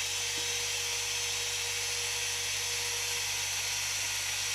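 Trim router motor on a home-built CNC machine running steadily at speed with a V-bit fitted, spinning without cutting before the carve begins; a constant high-pitched whine with a low hum under it.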